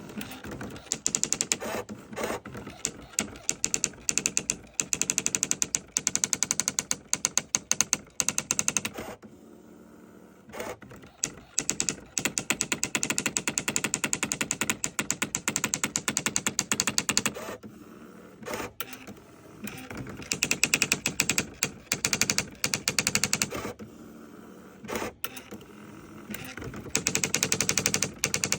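Olivetti ET 55 electronic daisy-wheel typewriter printing: long runs of rapid, evenly spaced strikes like a machine-gun rattle, broken twice or three times by short pauses.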